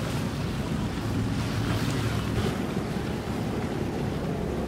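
Boat engine running with a steady low hum, under wind buffeting the microphone and water moving around the hull.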